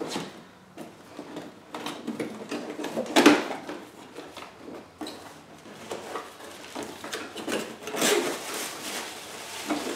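Cardboard headlight box and its paper and cardboard packing being handled and opened: irregular rustling and scraping, loudest about three seconds in and again near the end.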